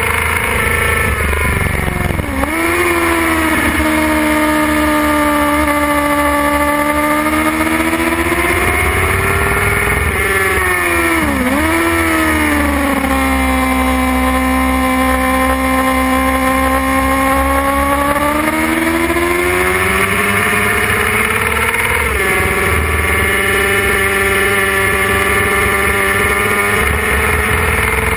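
Suzuki GSX-R 600 inline-four engine running at high revs on a track lap, heard from on board. The pitch holds high for long stretches, then dips sharply and climbs back three times: a little over two seconds in, near the middle, and about two-thirds through, as the bike slows and shifts for corners.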